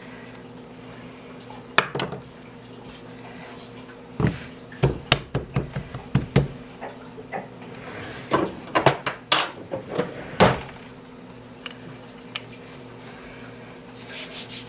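Kitchen utensils clattering and knocking against hard surfaces in a string of sharp knocks, bunched about two seconds in, from about four to six and a half seconds, and from about eight to ten and a half seconds, over a faint steady hum.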